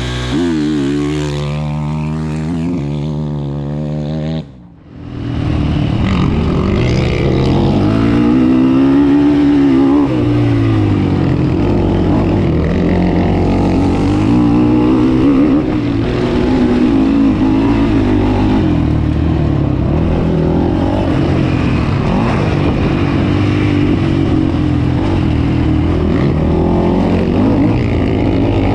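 Sport quad (ATV) engine heard from on board at full race pace, revving up and falling back again and again as the rider works through the gears over the track. The sound drops out briefly about five seconds in, then returns louder.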